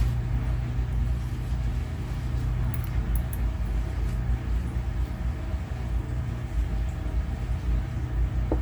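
Steady low hum of workshop background noise, with a few faint light clicks about three seconds in.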